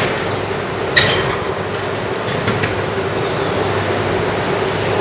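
Shinkansen automatic couplers of an E2 and an E3 train engaging: a sharp metallic clank about a second in, with a few fainter clicks, over the steady hum of the trains' equipment.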